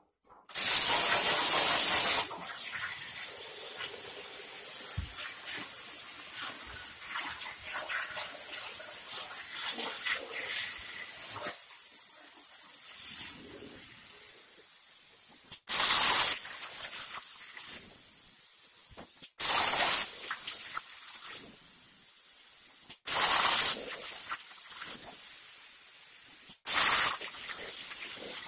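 CNC plasma cutter torch cutting metal sheet: a steady hiss, broken five times by short, much louder blasts of hiss, the first and longest about a second in.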